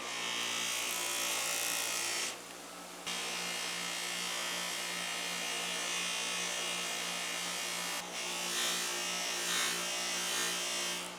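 Small handheld power tool running with a high, hissing whir. It stops about two seconds in, starts again under a second later, dips briefly later on and cuts off near the end.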